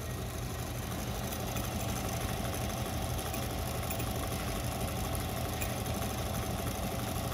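JUKI LBH-783 industrial buttonhole sewing machine running steadily as it stitches a buttonhole in denim.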